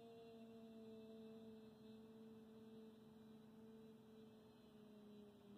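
A woman's voice softly holding one long sung note at a steady pitch, fading slightly: the sustained final note of a choir piece, sung as a conducting demonstration.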